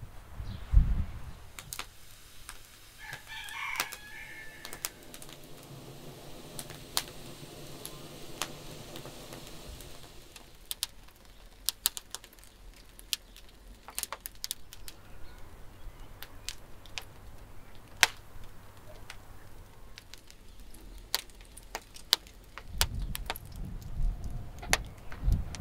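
Wood fire of kindling and logs crackling and popping in a brick wood-fired oven, with sharp snaps scattered irregularly throughout. A bird calls in the background early on, and a few low thumps come near the end.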